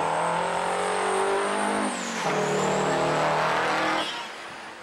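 Semi-truck diesel engines pulling hard under full acceleration. The pitch climbs, dips sharply at a gear change about two seconds in, then climbs again before the sound drops away abruptly about four seconds in.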